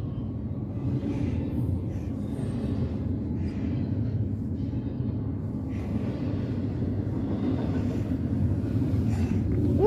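Container freight train rolling past, a steady low rumble of its cars on the rails.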